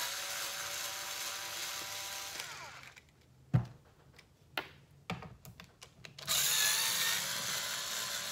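Small cordless electric screwdriver running as it backs out screws from a Onewheel XR's battery cover. It winds down about two and a half seconds in. A sharp knock and a few small clicks follow, and the screwdriver starts again near the end.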